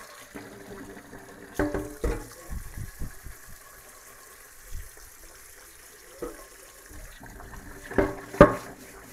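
Kitchen tap running into a stainless steel sink while a cast iron skillet is scrubbed under the stream. There are a few ringing clunks of the pan against the sink, two a couple of seconds in and two louder ones near the end.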